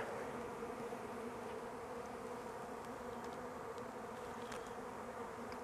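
Swarm of honeybees buzzing steadily around a newly installed hive, many still flying loose after being shaken out of their package. The hum is even and continuous.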